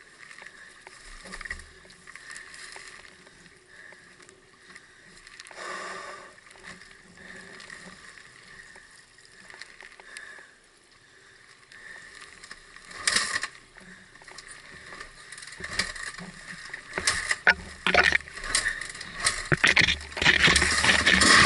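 Scattered knocks and scuffs from a trail bike being handled on a rocky track. Then, near the end, an enduro motorbike engine comes in loud.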